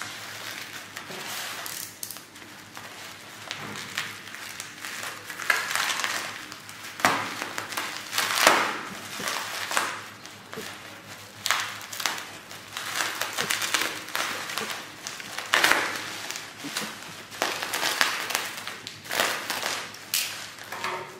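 Plastic bubble wrap crinkling in irregular bursts as it is handled and slit open with a small cutter.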